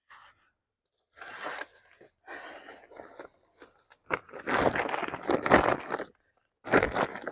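Crinkling, rustling and scraping of stored belongings being handled and pulled out from under a bed, in irregular bursts, loudest from about four to six seconds in.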